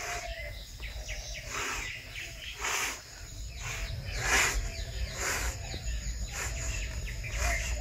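Telescopic fibreglass arecanut harvesting pole being extended by hand, section by section: a short rasping slide about once a second as each tube is pushed up and clamped. Birds chirp faintly behind it.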